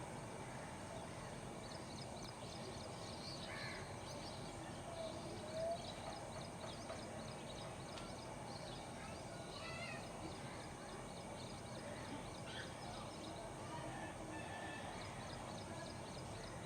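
Urban morning ambience: crows cawing now and then over quick, repeated high chirps of small birds, against a steady background hum.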